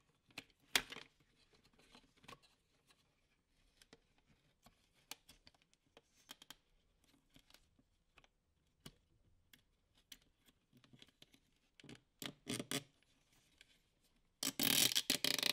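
Plastic parts of a car fuel pump module being handled and fitted together by hand: scattered small clicks, scrapes and light knocks, with a sharper click about a second in and a denser, louder stretch of clatter near the end.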